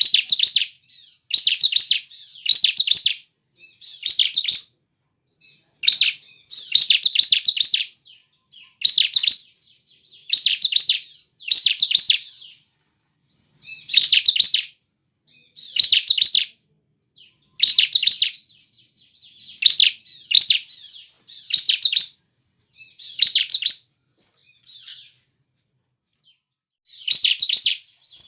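Bar-winged prinia (ciblek) singing: short bursts of rapid, high chattering notes, each under a second, repeated every second or two, with a brief lull about three-quarters of the way through.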